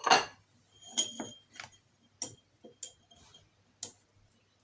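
Kitchen utensils clinking against a strainer and bowl as honey-soaked turnip pieces are stirred and pressed to squeeze out the syrup. A loud clatter at the start, then a string of light, separate clinks, several with a brief ring.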